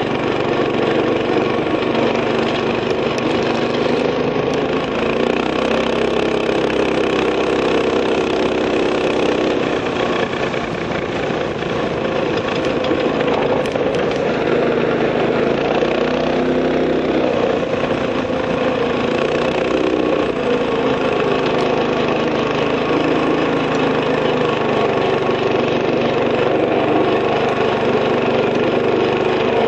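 Gas scooter engine running under way through a newly installed torque converter, its pitch rising and falling gently with speed.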